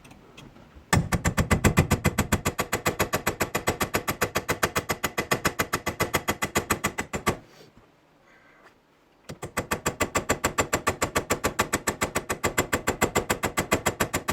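A hammer striking a steel pin punch in fast, even blows, several a second, driving at the seized pin that holds the 1965 Ford Thunderbird's shifter lever. The blows stop for about two seconds some seven seconds in, then start again.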